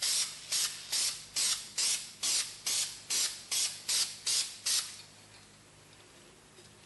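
Aerosol can of flat black spray paint sprayed in about a dozen short hissing bursts, a little over two a second, stopping about five seconds in: a light coat being put on a little at a time.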